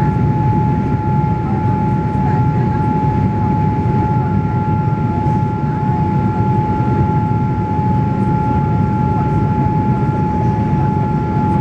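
Steady cabin noise of a Boeing 787 Dreamliner climbing after take-off: the engines' and airflow's rumble, with a steady high whine held over it.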